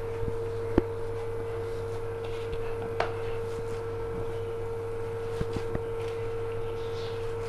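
A hand squishing and kneading a soft mash of boiled potato and chickpeas with chopped onion and herbs in a plastic bowl, over a steady low hum with a constant faint tone, and a few light clicks.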